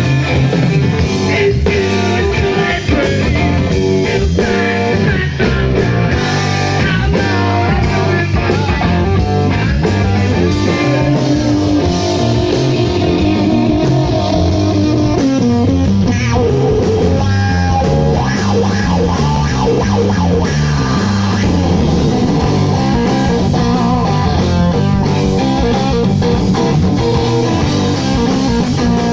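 Live rock band playing an instrumental passage: distorted electric guitar over bass guitar and drums, loud and continuous.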